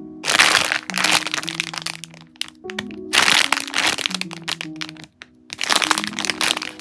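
Plastic squishy-toy packaging crinkling and crackling as the bagged squishies are handled and squeezed, in three loud bursts about three seconds apart. Soft background music plays underneath.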